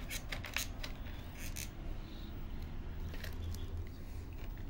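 A quick run of short, sharp clicks in the first second or so, a couple more a moment later, then a few fainter ones, over a steady low hum.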